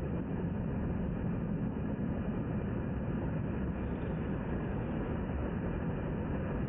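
Mi-26 heavy-lift helicopter's engines and main rotor running during takeoff: a steady, dense noise, strongest in the low range.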